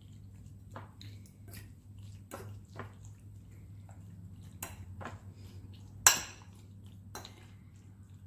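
A utensil knocking and clinking irregularly against a bowl while raw beef strips are mixed with seasonings and soy sauce, with one sharper, ringing clink about six seconds in.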